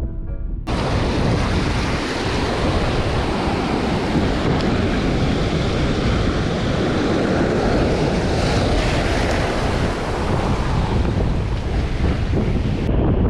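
Wind buffeting the microphone over the steady wash of breaking surf. A short tail of background music cuts off abruptly just under a second in.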